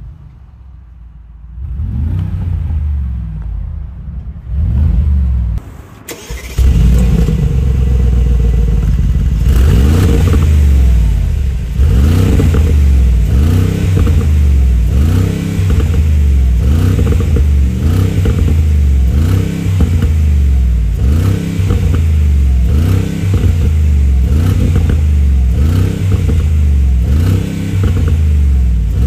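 Mercedes-AMG G63's handcrafted 4.0-litre twin-turbo V8 exhaust being revved: a few quieter blips, then about six seconds in it jumps much louder and holds, with rising surges in pitch roughly once a second.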